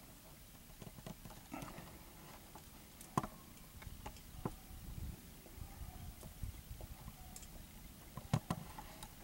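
Scattered soft clicks and knocks over a low rumble, with a sharper knock a little over three seconds in and two close together near the end.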